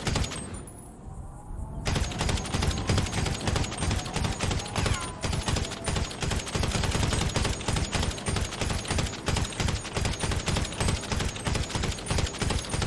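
Assault rifle firing on full auto, rapid shots in sustained bursts. The firing eases briefly in the first two seconds, then runs on without a break.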